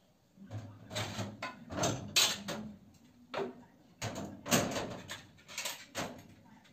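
Irregular light knocks and clinks as small kitchen items are picked up off a tabletop and set on a steel plate, each with a short metallic ring.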